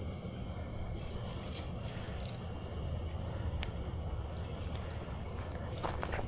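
Night insects, crickets, calling steadily as a continuous high drone with scattered faint ticks, over a constant low rumble.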